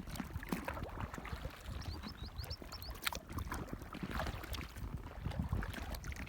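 Kayak paddling: water splashing and dripping off the paddle around the hull in irregular small splashes. About two seconds in, a bird gives a quick run of about six short, high, rising chirps.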